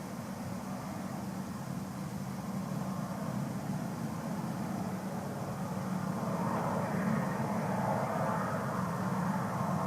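Jet aircraft engines running steadily, growing louder from about six seconds in as the aircraft nears.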